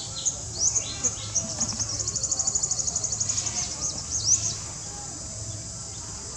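Wild birds chirping outdoors, with short rising whistles and, from about two seconds in, a fast trill of roughly a dozen notes a second lasting a second and a half, over a steady high hiss of insects.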